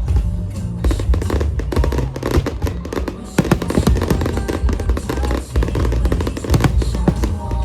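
Fireworks bursting and crackling in quick succession, a dense run of sharp pops from about a second in, over loud music with a heavy bass.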